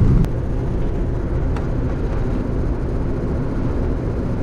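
A 1966 Hillman Imp's small 875 cc rear-mounted four-cylinder engine running steadily while driving, with road noise; a faint click and a slight drop in level come just after the start.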